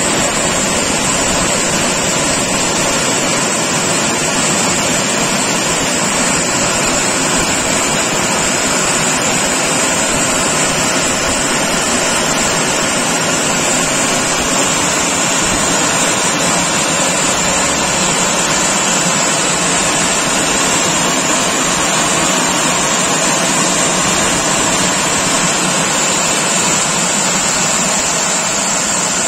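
Robowash 180 Eco Smart touchless car wash's drying blowers running: a steady, loud rush of air with a high hiss. This is the drying stage, the last stage of the wash, blowing water off the car.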